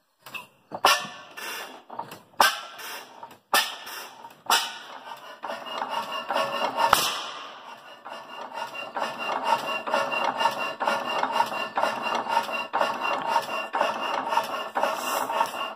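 Fairbanks Morse twin-flywheel stationary engine cold-starting by hand on the flywheels. It gives a string of loud single bangs in the first few seconds as it catches, then one more sharp bang, and settles into running with a fast, even clatter.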